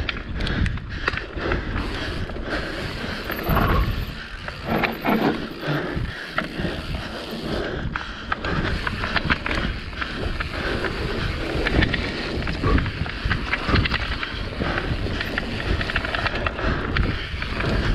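Mountain bike descending a dry dirt trail at speed: tyres rolling over dirt and gravel with a steady rushing noise, and the bike rattling and knocking over bumps again and again.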